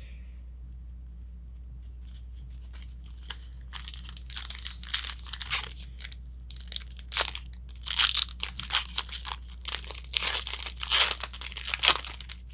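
A 2020 Panini Phoenix football card pack wrapper being torn open and crinkled by hand. A run of irregular sharp rips and crackles starts about three and a half seconds in and goes on until near the end.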